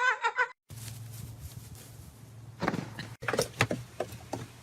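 A series of irregular knocks and rattles, like something bumping against a door or hard surface, over a low steady hum.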